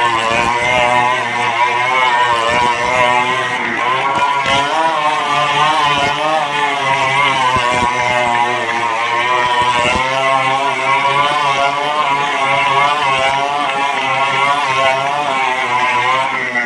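Motorcycle engines running hard as the bikes ride round the vertical wooden wall of a wall-of-death drum, their pitch rising and falling rapidly and repeatedly. Near the end the engine pitch drops away.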